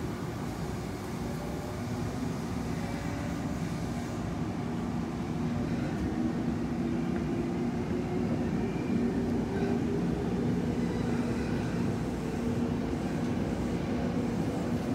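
Electric train pulling away on the Semboku Rapid Railway, its motor whine rising slowly in pitch over several seconds above a steady running rumble.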